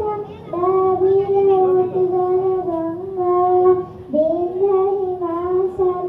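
A young girl singing solo into a microphone, holding long, steady notes in two phrases, with a short breath a little after the start and another about four seconds in.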